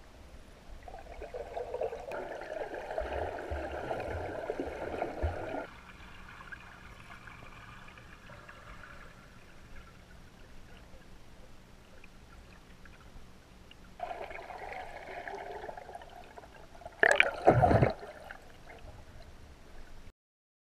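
Water gurgling and sloshing as picked up by a camera under water, in stretches that start and stop abruptly, with two brief loud bursts near the end.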